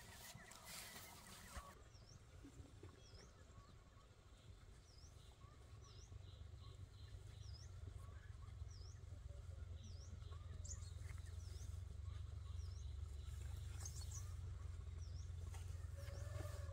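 A bird repeating a short, high call that dips and rises in pitch, a little more than once a second, over a steady low rumble.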